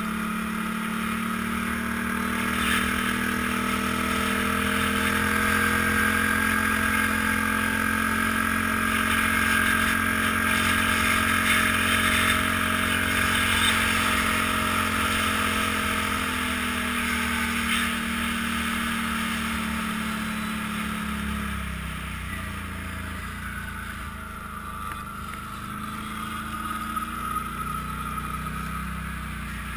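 ATV engine running at steady cruising throttle while riding along a snow trail, its note rising a little and then easing. About three-quarters of the way through the throttle comes off and the engine drops to a lower, quieter note as the machine slows.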